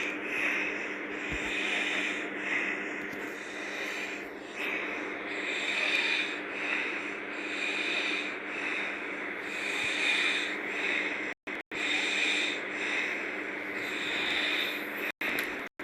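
A girl snoring hard in deep sleep, her noisy breaths swelling and fading every second or two.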